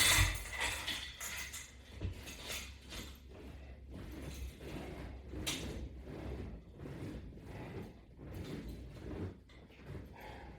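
Exercise-equipment hardware, the latch bar's strap attachment, clicking and rattling in an irregular series of short knocks, loudest right at the start and again about halfway through.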